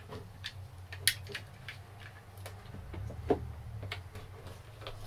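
Small clicks and taps of a plastic electrical outlet being handled and pressed into a cutout in a wooden cabinet panel, with a sharper click about a second in and another a little past three seconds. A low steady hum runs underneath.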